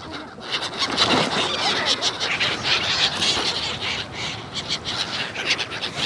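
A large flock of gulls calling at once: a dense, continuous chatter of many overlapping short cries.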